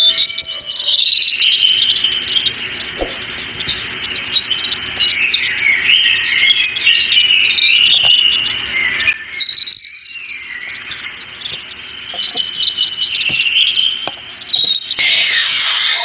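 Forest ambience of many songbirds chirping and trilling together, with a brief drop about nine seconds in. A loud hiss comes in during the last second.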